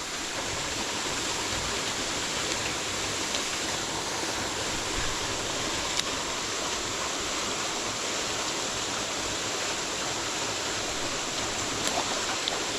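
Steady rush of a mountain stream's flowing water, with a faint click about six seconds in.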